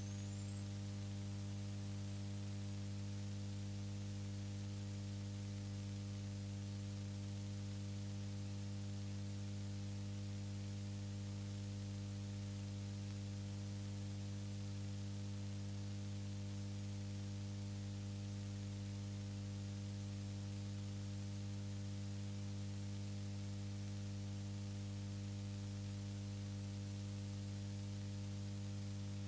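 Steady electrical mains hum with a faint hiss and a thin high whine: noise on the recording line, with no race sounds heard.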